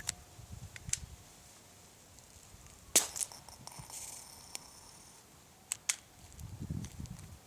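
Goblin Solo paintball/airsoft pistol firing: several sharp, single shots. The loudest comes about three seconds in with a hiss trailing after it, and a quick pair of shots comes near the end.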